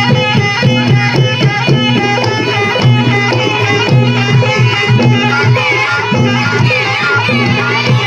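Loud traditional Javanese barongan accompaniment: hand drums beating a steady rhythm under struck metal gamelan tones, with a wavering melody on top.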